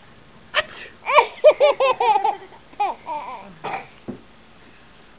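Six-month-old baby laughing: a quick string of short, high-pitched giggles about a second in, then a few more shorter bursts after a brief pause.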